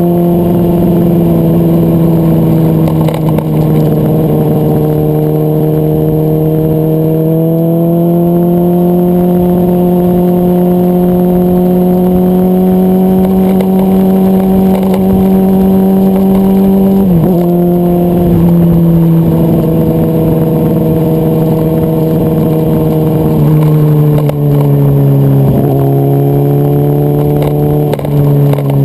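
Motorcycle engine running hard at a steady cruise, its note slowly rising. It dips briefly and settles at a new pitch about halfway through and twice near the end, as at gear changes.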